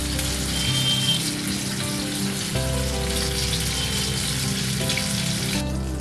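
Pomfret fish frying in hot mustard oil, a steady sizzle and crackle that drops out briefly near the end.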